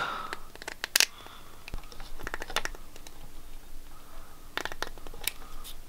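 Light handling noise: a few sharp clicks and faint scratching of small hard objects being handled.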